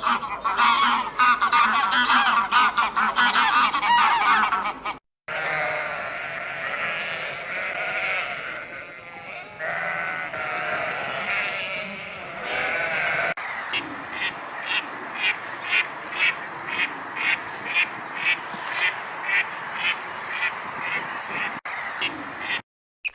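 Farm animals calling in three clips cut one after another: a dense chorus of overlapping calls, then a second chorus, then sharp calls repeated about twice a second, which cut off suddenly near the end.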